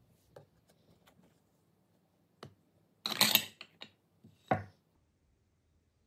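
Cake server and knife tapping and scraping against a cardboard cake board and ceramic plates as slices of cream cake are lifted out and plated: a few light clicks, a louder scraping clatter about three seconds in, and a single sharp knock soon after.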